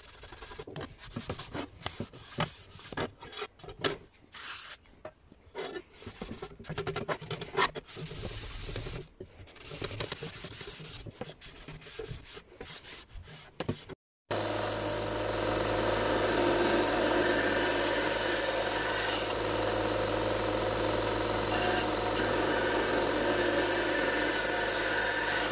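Hand scrubbing of a rusty steel sickle blade with an abrasive pad: irregular back-and-forth scraping strokes. About halfway through, after a brief break, a bench belt grinder runs steadily with a constant hum, grinding the sickle's steel edge.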